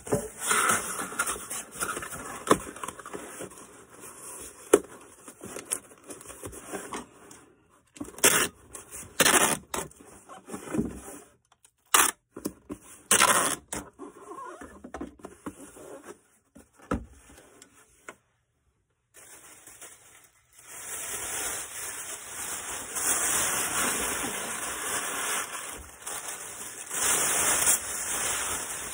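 Packing by hand: irregular scraping, crackling and knocking of packaging and small items. A brief dead dropout comes about two-thirds through, followed by a steadier hiss of noise.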